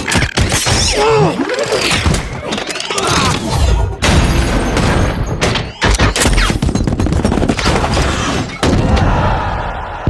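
Film battle sound effects: a run of heavy thuds and explosion booms with gunfire, mixed with whirring, gliding mechanical sounds of robot parts.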